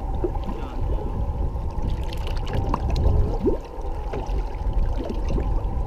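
Steady rumble of wind and water aboard a fishing boat at sea, swelling and dipping, with a few faint brief sounds in the background.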